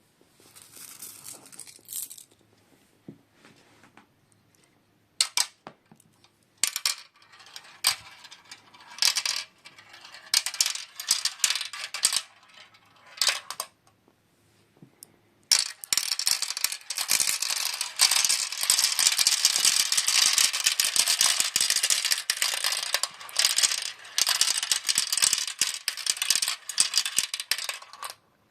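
Marbles rolling and clattering down a plastic marble run track: scattered runs of clicks and rattles at first, then from about halfway a dense, continuous clatter of many marbles at once that cuts off suddenly near the end.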